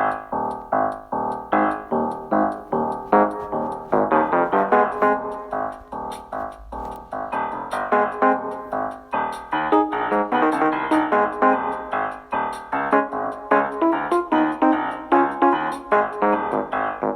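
Piano music: a keyboard melody played as a steady run of struck notes, a couple or more every second.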